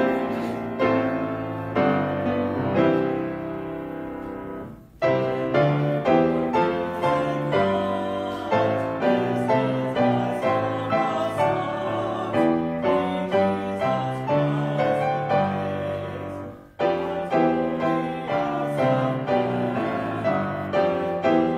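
Piano playing a slow hymn tune in chords, each chord struck and then fading, in phrases with two short breaks about five and seventeen seconds in.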